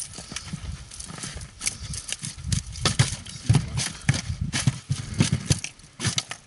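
Irregular knocking and thumping in a fishing boat, with sharp clicks mixed in, busiest in the middle and dying away near the end.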